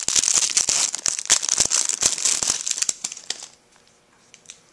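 Clear plastic wrapping crinkling as a handheld radio is unwrapped from it, with many sharp crackles. It stops about three and a half seconds in, leaving a few faint clicks of handling.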